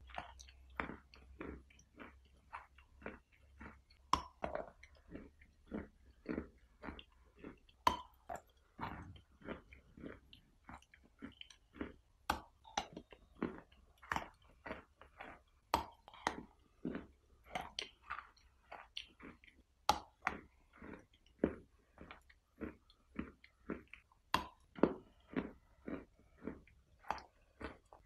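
Close-miked chewing and crunching of a chalky substance, with short chewing strokes about twice a second and a sharper, brighter crunching bite every few seconds.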